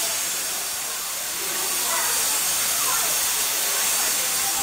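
Steady hiss of steam escaping from a standing Bulleid West Country class steam locomotive, 34028 Eddystone, a 4-6-2 Pacific.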